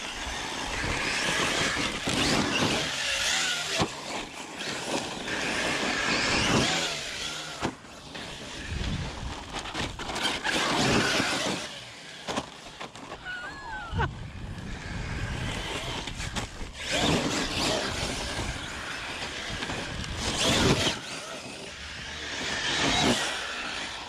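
Electric RC rally car driven hard on loose dirt, its motor whining up and down in repeated bursts of acceleration, with the hiss and spray of tyres sliding on sand and gravel.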